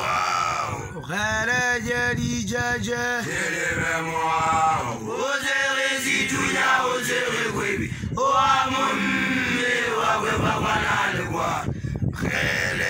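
A newly initiated Basotho young man's voice chanting in phrases of a few seconds, holding flat notes that step between a few pitches, with short breaks for breath between phrases.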